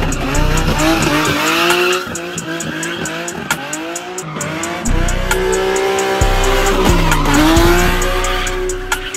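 Nissan 350Z's V6 revving up and down hard through a drift, with the tyres squealing. A music track with a steady beat plays over it and is left alone near the end.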